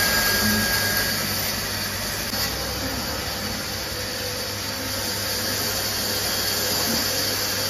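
A machine running steadily, a constant whooshing noise with a low hum under it.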